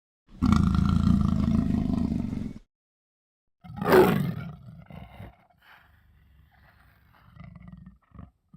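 Predator (Yautja) creature sound effects: a loud roar lasting about two seconds, then after a short silence a sharp cry that falls in pitch, trailing off into faint, scattered low sounds.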